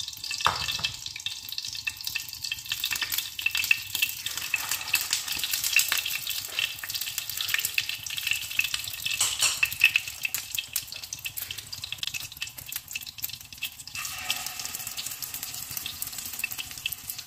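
Egg-coated chicken shami kebabs sizzling and crackling as they shallow-fry in hot oil in a nonstick frying pan, with a dense stream of small pops.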